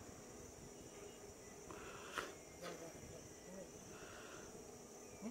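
Faint, steady, high-pitched insect chorus, likely crickets, with a sharp click about two seconds in and a few faint short calls.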